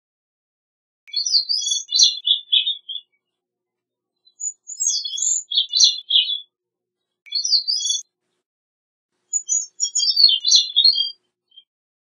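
Gray-cheeked thrush singing four separate song phrases. Each phrase is a quick run of high notes that drops in pitch toward its end.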